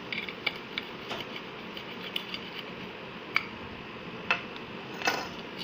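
Serrated knife cutting through a cooked aloo paratha on a steel plate: light scattered clicks and scrapes of the blade against the steel, with a sharper click past the middle and a short scrape near the end, over a steady low hiss.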